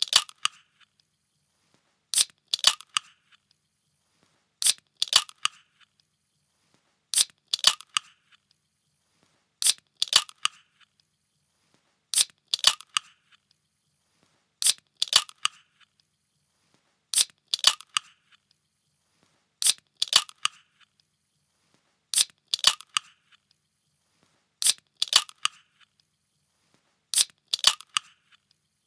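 A can being opened, a sharp crack followed by a short crackling rush lasting about half a second. The same sound repeats about every two and a half seconds, a dozen times over.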